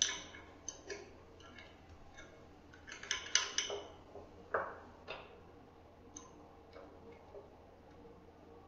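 Scattered metal clicks and clinks of open-end wrenches on a CNC spindle's collet nut as the router bit is loosened and taken out, with a quick cluster of taps about three seconds in.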